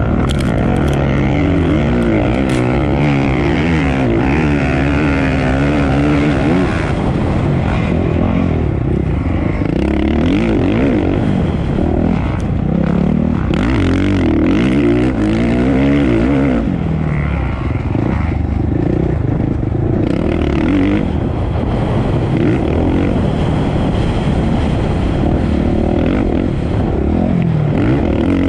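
Racing engines running hard, their pitch climbing and falling again and again with throttle and gear changes.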